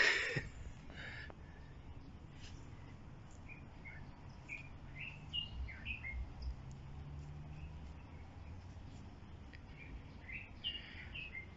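Wild birds chirping in short, scattered calls, with a cluster of calls near the end. A brief rustle of the camera being moved comes at the very start.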